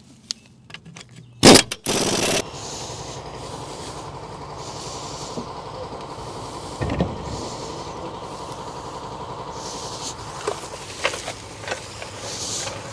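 Lug nuts being run onto a wheel: a sharp clank, then a half-second burst of an air impact wrench. After it comes a steady mechanical hum, with a thump about halfway through and a few light clicks near the end.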